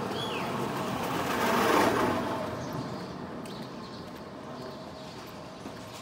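A vehicle passing close by on the road: its noise swells to a peak about two seconds in, then fades away. A bird gives a short descending chirp at the very start.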